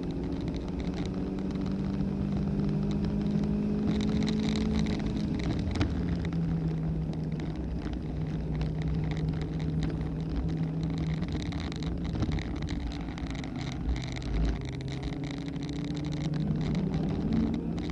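Inside the cabin of a car lapping a road course at speed: the engine runs hard, drops in pitch about five seconds in as the car slows for a corner, then holds steady, over road and wind noise. A high tyre squeal comes and goes in the corners.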